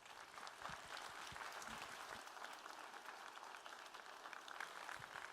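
Audience applauding steadily: a dense patter of many hands clapping in a school auditorium.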